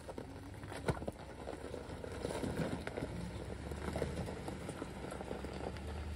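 Ram 1500 pickup truck driving slowly over a rocky wash: loose stones crunching and clicking under the tyres, over the engine's low steady hum, which grows louder in the second half as the truck passes close.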